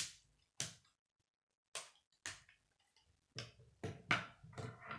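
Plastic K'nex rods and connectors snapping together in four sharp clicks, then a denser clatter of plastic parts knocking on a wooden tabletop as the model is set down, loudest about four seconds in.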